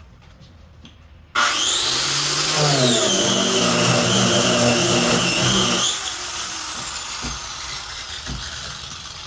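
Handheld power tool sanding a fiberglass camper shell. It starts suddenly about a second in with a rising whine that drops in pitch as it bites into the surface, then runs steadily for about four seconds. It is then switched off and its whine slowly falls as it spins down.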